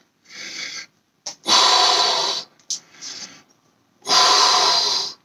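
A man breathing hard from exertion as he lifts against a resistance band. There are two loud, hissing exhalations about a second long, each after a quieter inhale.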